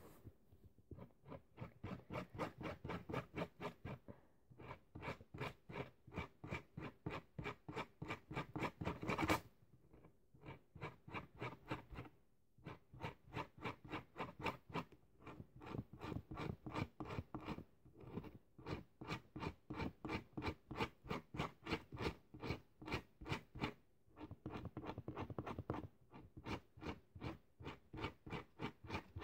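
Washable felt-tip marker scratching along a strand of hair in quick repeated strokes, about four a second, in runs broken by short pauses.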